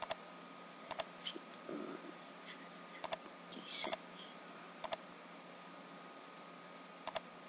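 Computer mouse buttons clicking: about five quick press-and-release double clicks spread over several seconds, with faint rustling in between.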